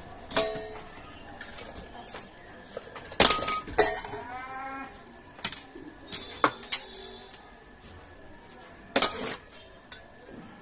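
Hand tools knocking and clinking on a steel frying pan during repair: a dozen or so separate sharp metallic strikes, the loudest about three seconds in and again near nine seconds. About four seconds in comes a brief wavering pitched sound.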